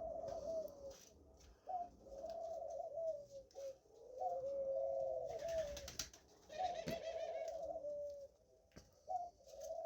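A dove cooing over and over, a warbling coo with a falling end about every two seconds. A couple of sharp clicks and a short hiss come near the middle.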